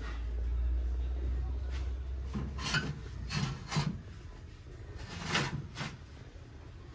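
A hand rubbing and brushing over brass elephant figurines in about six short scraping strokes, with a low rumble in the first two seconds.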